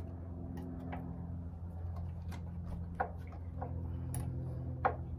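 Light, irregular metal clicks and taps of brake pads and caliper parts being handled and pushed into place in a motorcycle's rear brake caliper, over a steady low hum.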